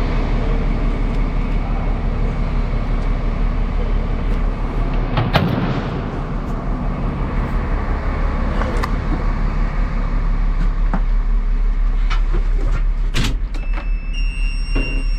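Diesel engine of a Terex TLB-815 backhoe loader running steadily just after start-up, with a few short knocks. A steady high-pitched electronic tone comes in near the end.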